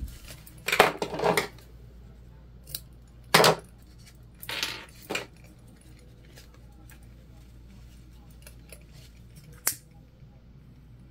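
A handful of short clinks and rattles from hands at work, beaded bracelets jangling on the wrist while a lighter is handled to seal the zipper tape ends; one more clink near the end.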